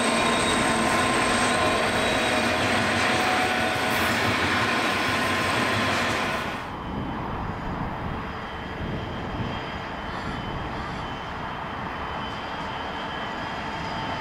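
Pacific National 90 class diesel locomotives, EMD GT46CWM units with sixteen-cylinder two-stroke EMD 710 engines, running past close by with a steady engine drone. About six and a half seconds in the sound drops abruptly to a quieter, more distant 90 class-led coal train approaching and slowly growing louder.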